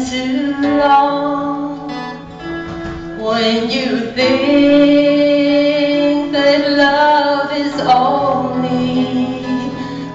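A woman singing a slow song live, holding long notes, over a guitar accompaniment.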